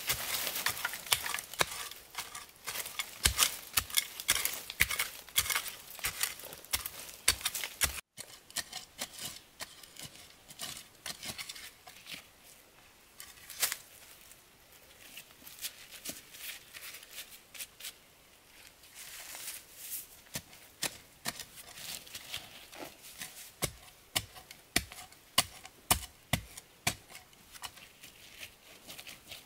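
Irregular sharp clicks and knocks, coming thick and fast for about eight seconds, then sparser after a sudden break.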